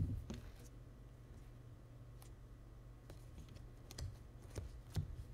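Playing cards being handled and sorted in the hand: faint scattered clicks, with a few soft knocks, one right at the start and more near the end.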